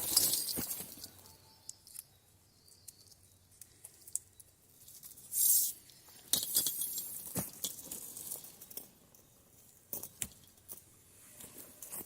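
Scattered handling noises from working with plastic pipe and tape: light clicks and rustles, with a short hissing scrape or tear about five and a half seconds in.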